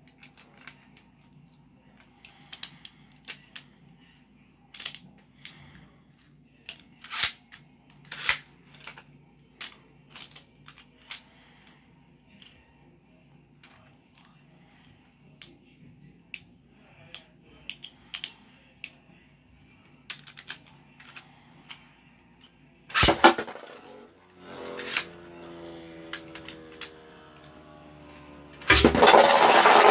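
Scattered plastic clicks as Beyblade Burst tops are fitted to their launchers, then a sudden launch about 23 s in. The tops spin in the plastic stadium with a whir that falls in pitch, and loud clattering near the end as they collide.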